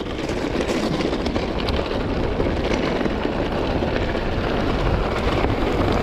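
Mountain bike riding a dirt trail: steady rushing wind noise on the action camera's microphone mixed with tyre rumble and small rattles and clicks, building slightly in loudness.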